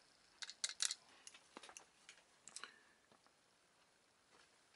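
Several light clicks and taps, spread over the first three seconds, of a circuit board and soldering tools being handled on a wooden workbench, then near silence.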